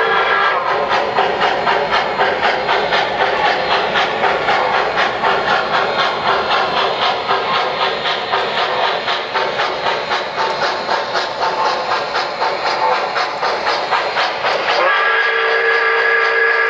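Sound systems of MTH Premier O-gauge Pennsylvania Railroad steam locomotives (a J1 2-10-4 and an M1b 4-8-2) playing a steady, rapid chuffing. A multi-note steam whistle cuts off just after the start, and another long whistle blast begins near the end.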